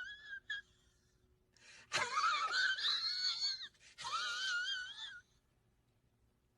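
High, wavering whining cries: a short one at the start, then two long drawn-out ones in the middle, each sliding up and down in pitch.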